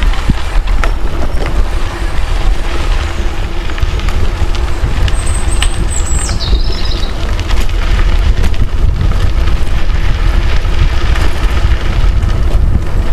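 A heavily loaded touring bicycle rolling down a gentle slope, with steady wind buffeting on the microphone and scattered knocks from bumps. A short high whistle that drops in pitch comes about six seconds in.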